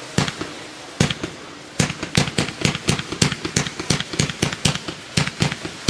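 Low-noise 100-shot firework cake firing silver cyclone shots in a fan, each shot leaving its tube with a sharp pop. Two pops come spaced out at first, then from about two seconds in a rapid string of about four to five a second.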